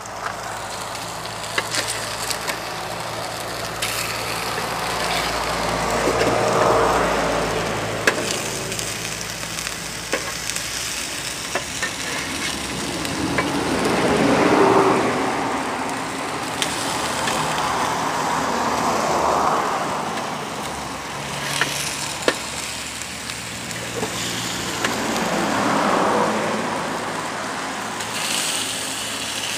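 Spanish mackerel burger patties sizzling as they fry in a pan, the sizzle swelling and easing about four times, with a few sharp clicks. A faint low steady hum runs underneath.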